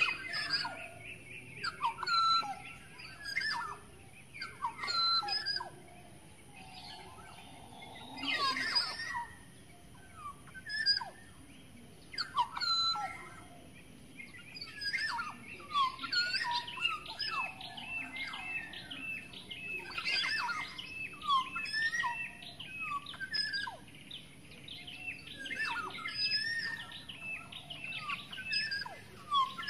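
Wild birds calling in the treetops: many short chirps and whistled notes, with fast chattering trills at the start and again through the middle of the second half. The title names the bird as the kepodang, an oriole.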